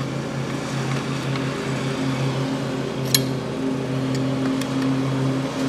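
A steady machine hum, a low drone with a few overtones that pulses slightly. Over it come a sharp click about three seconds in and a few faint ticks as a measuring gauge and tools are handled on a steel clutch pack.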